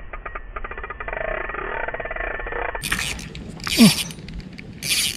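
Ryobi Smurfs 500 spinning reel being cranked, giving a fast run of ticks, as the lure is retrieved after a lost fish. From about three seconds in come rushes of wind noise and one short sound falling in pitch, the loudest moment.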